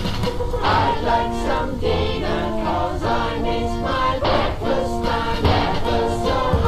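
Music with singing voices, choir-like, over a steady low beat.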